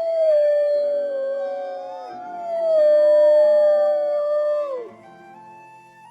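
Wolves howling: two long howls that slide slowly down in pitch, the second dropping off sharply about five seconds in, with soft flute background music.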